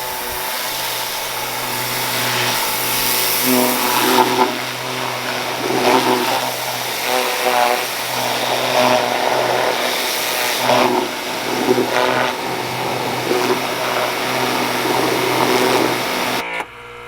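Pressure washer running, its spray hissing against the underside of a mower deck as it blasts off gummed-up weed clippings. The sound swells and changes every second or two, and stops abruptly near the end.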